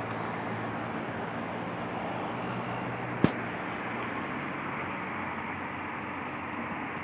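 Diesel locomotive of an approaching train rumbling steadily in the distance, with a low engine hum under an even noise. A single sharp click about three seconds in.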